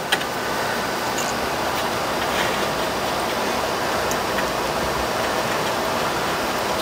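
Two cotton swabs scrubbing rapidly back and forth on a circuit board, cleaning flux residue off freshly soldered joints: a steady, scratchy rubbing.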